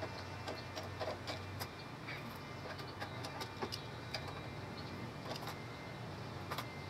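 Irregular light metallic clicks and taps of a hand tool and hands working at a rusty golf-cart brake drum and hub, over a steady low hum.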